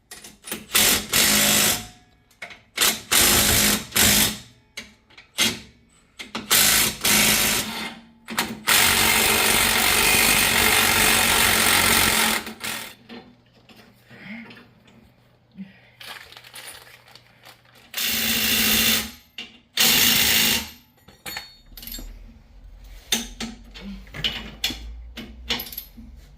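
Power wrench running on the axle U-bolt nuts of a lift-block swap: a string of short bursts of one to two seconds, then one longer run of about four seconds, with clanks of tools and parts between.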